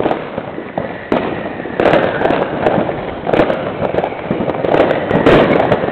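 New Year's Eve fireworks going off all around: a dense run of firecracker bangs and crackling, with a thin high whistle in the first couple of seconds and louder bangs about a second in, near two seconds and past five seconds.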